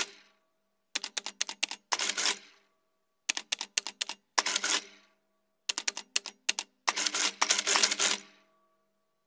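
Sound effects for an animated title: three runs of quick, sharp clicks, each ending in a denser rattling burst that fades out. The last burst, near the end, is the longest.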